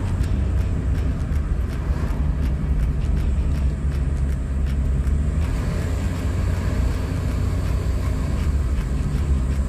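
Steady low in-cabin rumble of a Mitsubishi i kei car being driven, its small three-cylinder engine running under way along with road and tyre noise.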